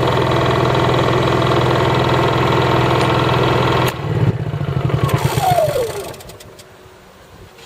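Honda EU3000is inverter generator's single-cylinder engine running steadily, then shut off about four seconds in: it runs down with a falling whine and goes quiet within a couple of seconds.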